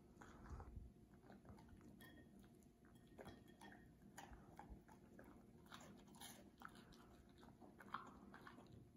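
A dog chewing pieces of grilled cheese sandwich from a plate, heard as faint, irregular smacks and clicks.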